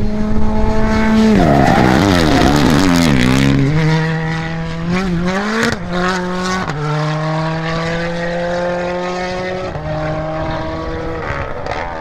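Rally car engine held at high revs, then several quick downshifts with crackling pops as it brakes, starting about a second and a half in. It then pulls away through the bend, with short throttle blips and further gear changes.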